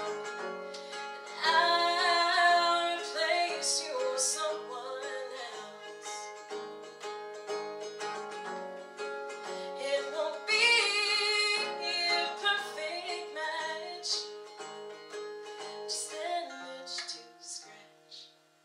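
A woman singing to her own acoustic guitar, two loud held phrases standing out, the guitar picked beneath her voice. The music fades to a brief pause near the end.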